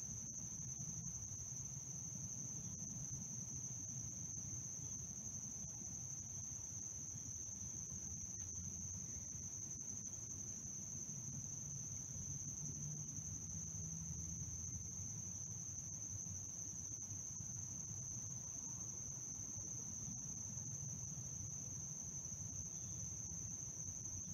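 Crickets trilling in a steady, unbroken, high-pitched chorus, over a low steady rumble.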